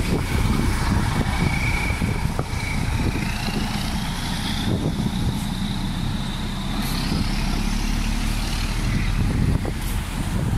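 Road traffic passing close by: a large bus and cars with their engines running, making a dense low rumble. A high whine rises slowly in pitch over several seconds from about two seconds in.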